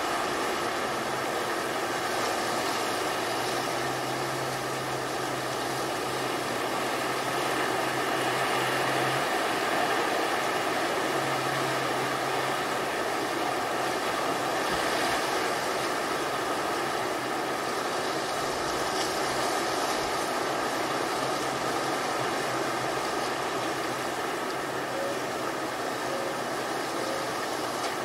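Steady wash of ocean surf, with a low motor drone underneath that stops about nine seconds in and comes back briefly a couple of seconds later.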